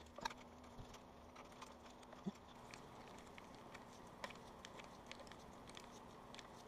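Faint, irregular light clicks of a T-handle driver turning oil pan bolts into an aluminum upper oil pan, running them in until flush without tightening.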